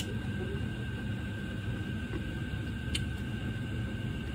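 Steady low mechanical hum with a faint steady whine above it, with a sharp click at the start and another about three seconds in from chopsticks against a ceramic plate.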